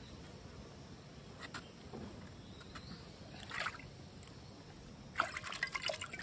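Faint trickling and splashing of water with scattered small clicks, turning into a busier spell of splashing about five seconds in.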